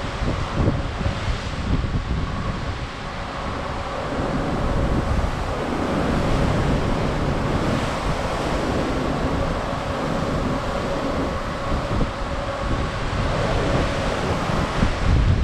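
Rush of open-sea swells and wash along a moving cruise ship's hull, with gusting wind buffeting the microphone.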